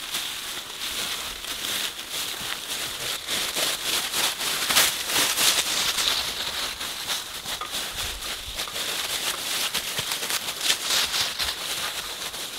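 Hikers' boots crunching and shuffling through a thick layer of dry fallen leaves, a steady run of rustling steps.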